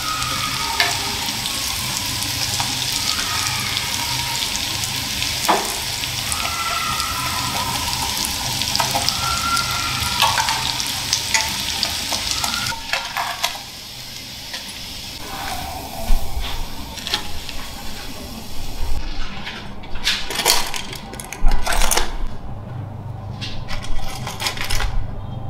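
Breaded yogurt cake pieces deep-frying in hot oil with a steady sizzle, with metal tongs clicking against the pan as they are turned. About halfway through the sizzle stops, and there are irregular knocks and taps as the fried pieces are set down with tongs on a wooden board.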